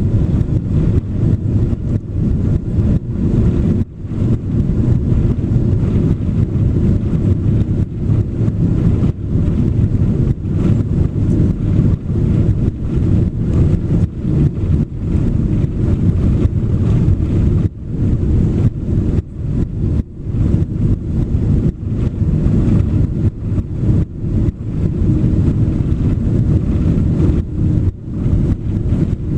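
Airliner cabin noise aboard a Boeing 767-400: a loud, steady low rumble of engines and airflow, broken by many brief dips.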